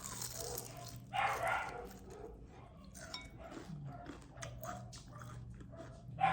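A dog barking: one bark about a second in and another at the very end, over a low steady hum.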